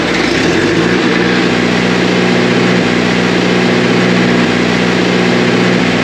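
Cummins generator set's engine coming up to speed in its first second after a manual-run start, then running steady at rated speed. It runs loud.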